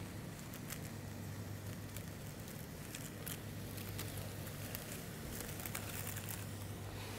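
Thin sheets of jullaj (filo-type) pastry crinkling and crackling as gloved hands lift and crumple them, in many small irregular ticks over a steady low hum.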